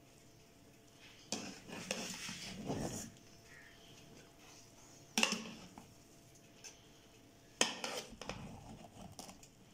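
Metal spoon scraping and clinking against a metal cooking pot while mixing cooked biryani rice, in three bouts, the middle one short.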